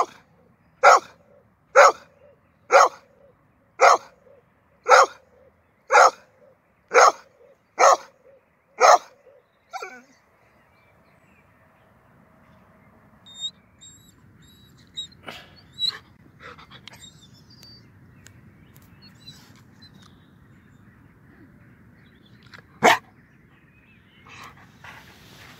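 Yellow Labrador retriever barking at a rabbit burrow: about ten sharp barks, one a second, then she stops. Faint sniffing and scuffling follow as she noses into the hole, with one more single bark near the end.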